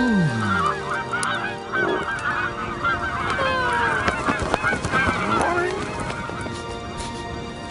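Cartoon sound effect of a flock of birds honking and squawking: many short overlapping calls that thin out towards the end. It opens with a low tone sliding down in pitch.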